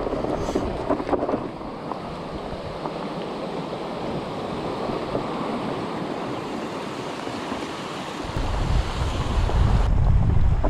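Wind rushing over an action camera's microphone while riding a mountain bike, a steady hiss; from about eight seconds in a heavy low rumble of wind buffeting the microphone gets louder.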